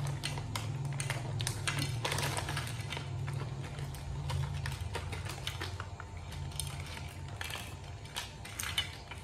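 Plastic snack bag crinkling and rustling as it is handled and emptied onto a plate, many quick irregular crackles over a low steady hum.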